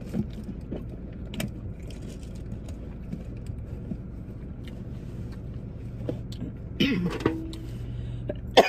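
Small clicks and rustles of someone reaching round and searching the back seat of a car, over a steady low hum in the cabin. Near the end comes a short vocal sound that falls in pitch.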